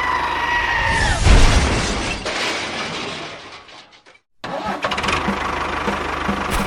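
Small engine or motor: a steady whine that falls away about a second in, then a loud burst of noise that fades. After an abrupt cut, steady running with a regular pulse.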